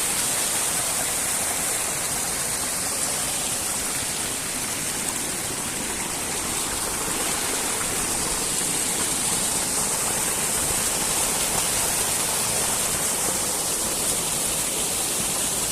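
Mountain stream water rushing steadily: a constant, even hiss with no breaks.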